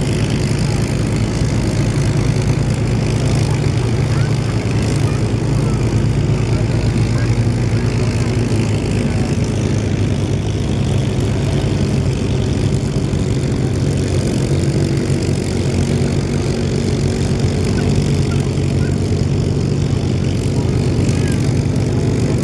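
Spitfire piston engines running steadily at low power as the fighters taxi past, one after another, propellers turning.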